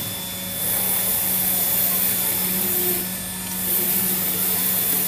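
UV flatbed tile printer running: a steady mechanical hum with a strong fan-like hiss from its motors and fans. The hiss dips briefly near the start and again about three seconds in, while the print carriage sweeps back and forth over the tiles.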